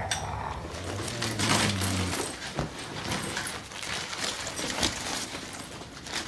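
Porcelain coffee cups and saucers clinking lightly on a tray in scattered small knocks, over a low hum in the first two seconds.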